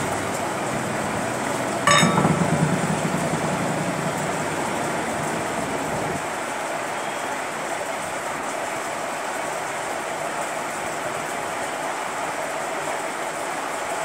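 A single metal clank about two seconds in as the ceiling fan motor parts are handled, ringing briefly with a low hum that fades over a few seconds, over a steady rushing background noise.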